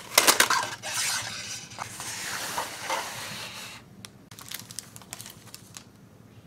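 Cardboard gift box and clear plastic packaging being handled: sharp crackles in the first second, a steady rustle for about three seconds, then a few light clicks and taps.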